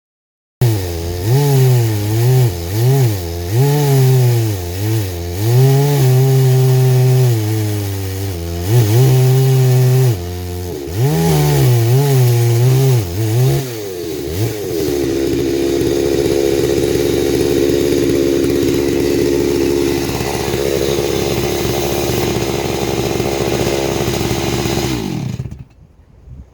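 Chainsaw in an Alaskan chainsaw mill ripping a hickory log lengthwise. The engine speed swings up and down repeatedly for the first half, then holds steady under load, and falls away near the end. The owner thinks the chain needs sharpening.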